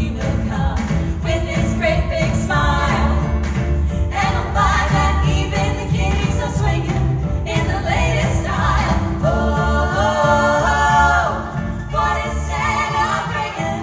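Vocal group singing a Christmas song over an instrumental backing track.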